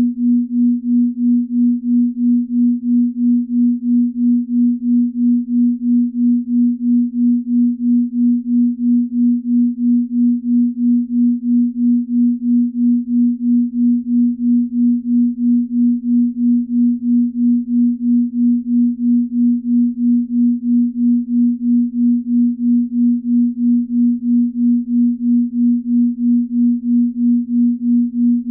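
Binaural beat: a steady low pure tone, pulsing evenly in loudness about two and a half times a second, a slow beat of the kind meant to draw the listener towards deep sleep.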